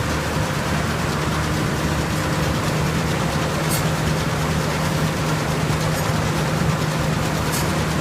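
John Deere 1075 combine harvester's engine running steadily, a constant low hum with a strong even drone. A faint high tick recurs about every four seconds.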